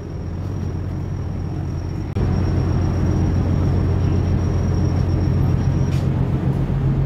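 Car ferry's machinery drone, a steady low hum with a faint high whine over it. It gets suddenly louder about two seconds in, and the whine stops near the end.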